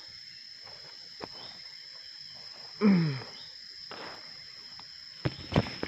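Steady high-pitched chirring of insects, typical of crickets, with a few soft ticks. About three seconds in comes one short, loud, low call that falls in pitch.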